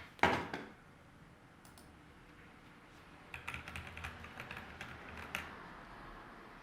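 A single loud knock about a quarter second in, then a quick run of computer keyboard key presses clicking for about two seconds.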